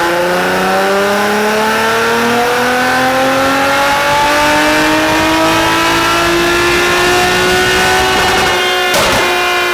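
Car engine at full throttle on a chassis dyno, its pitch climbing steadily through a long pull of about nine seconds. Near the end the throttle is closed and the exhaust gives a few sharp pops.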